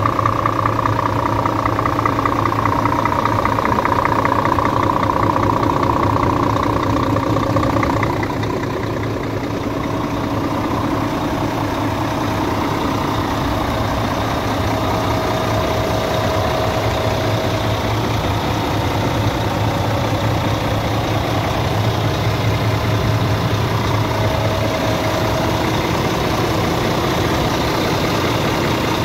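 Scania P410 concrete mixer truck's 13-litre inline-six diesel idling steadily. It gets slightly quieter about eight seconds in.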